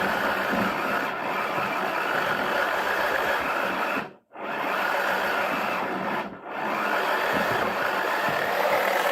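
Toy washing machine's small electric motor running steadily, turning the drum. It cuts out briefly twice, about four seconds in and again about two seconds later.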